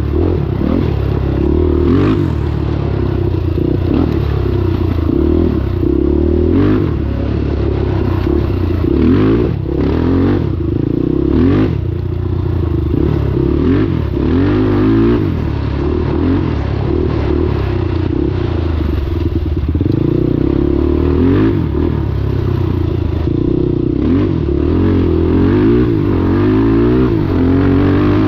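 Honda 400EX quad's single-cylinder four-stroke engine running on a trail ride, its pitch rising and falling over and over as the throttle is worked, with scattered knocks and rattles.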